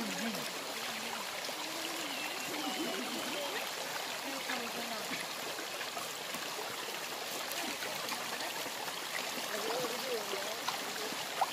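Shallow river running over rocks, a steady rushing and trickling of water, with faint voices now and then.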